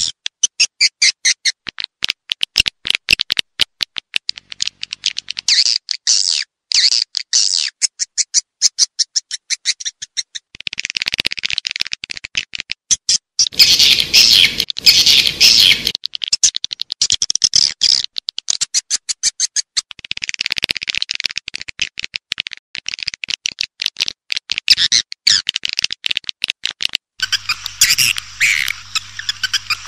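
Swiftlet calls played as a lure for a swiftlet house: rapid trains of clicking chirps and buzzy chattering trills, repeating in quick runs with short gaps. A low steady hum joins near the end.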